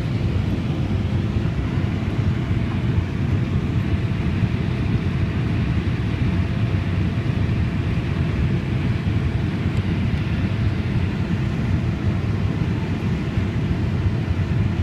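Combine harvester running steadily while picking corn, heard from inside the cab: a continuous low drone of engine and threshing machinery.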